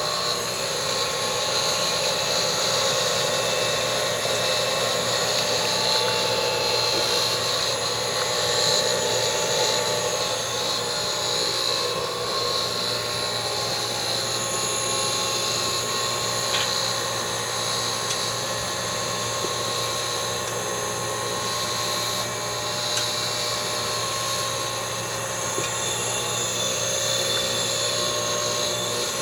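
Vectrax 6x18 inch manual surface grinder running steadily, its spindle motor and coolant pump giving a constant hum and whine.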